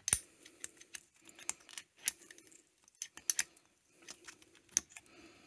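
Irregular light metallic clicks and clinks as a magnetic pickup tool knocks and scrapes against the steel valve spring base plate in the valve pocket of a Yamaha SR125 cylinder head. The sharpest click comes just at the start, another near the end, and smaller ones fall between.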